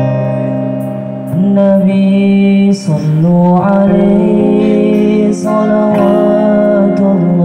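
A man sings a sholawat melody into a microphone over strummed acoustic guitars. The voice comes in about a second and a half in, with long held notes that slide between pitches.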